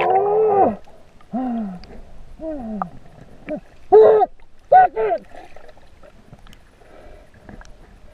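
Human voices muffled and hollow through the water around a submerged camera: a string of short calls with falling pitch over the first five seconds, then only faint water noise.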